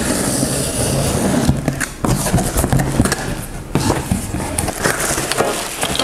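Cardboard box being unpacked: packing tape slit with a box cutter, and cardboard flaps and packed parts scraping and rustling, with several sharp knocks along the way.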